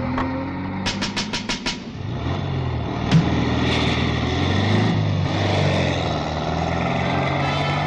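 Volkswagen Beetle's air-cooled flat-four engine running as the car drives slowly up to a checkpoint. There is a quick run of five sharp clicks about a second in and a single sharp knock about three seconds in.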